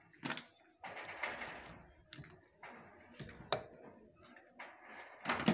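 A few sharp clicks and knocks with faint rustling between them, from a household sewing machine being handled at its handwheel; the loudest knock comes near the end.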